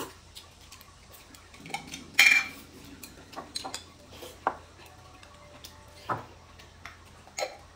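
Chopsticks clicking and tapping against porcelain bowls and plates during a meal, with scattered separate clinks and one louder brief noise about two seconds in.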